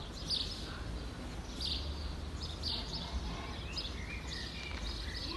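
Small birds chirping repeatedly in short high calls over a steady low outdoor rumble.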